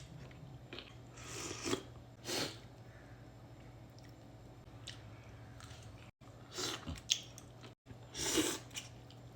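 A person chewing a mouthful of pho with beef tendon and meat close to the microphone, with several short, louder wet mouth sounds over a low steady hum.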